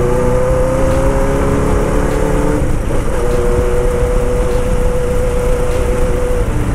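Honda CB750 Boldor's air-cooled inline-four engine pulling along the road, its pitch climbing slowly, with a brief break about three seconds in. It then holds a steady pitch and falls away near the end. It runs cleanly without backfiring, its carburettors well tuned.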